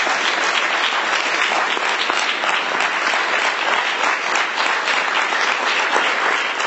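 Audience applauding: steady, dense clapping from a large crowd at the close of a speech.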